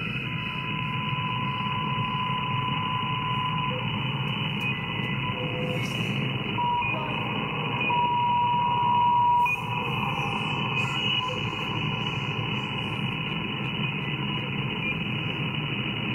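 SDRplay RSP2 receiver audio tuned around 200 kHz in the low-frequency band: steady static hiss, cut off above about 3 kHz, with faint steady whistle tones. A clearer whistle tone sounds for about the first four seconds and again, louder, about eight seconds in for a second and a half.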